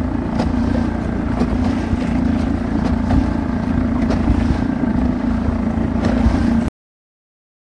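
A boat engine running steadily at an even pitch, mixed with wind buffeting the microphone and water rushing past the hull. The sound cuts off suddenly near the end.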